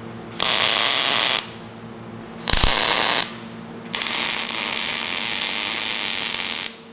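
MIG welder arc crackling and sizzling as it lays weld on steel. It comes in three bursts: about a second, then a shorter one, then nearly three seconds. A steady low hum runs underneath.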